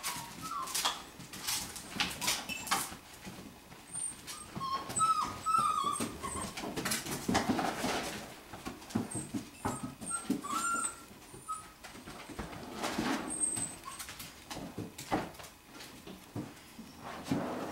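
Five-week-old golden retriever puppies whimpering with short, high whines in a few clusters, among scattered knocks and clicks as they scramble around plastic toys.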